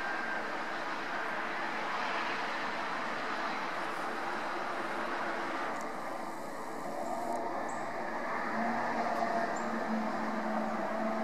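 Steady background din, with a low steady hum coming in during the second half.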